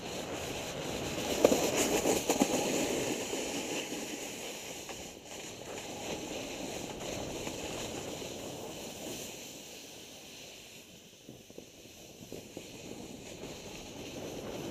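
Snowboard sliding and carving over groomed snow, a steady scraping hiss that is loudest and scratchiest about two seconds in and eases off later.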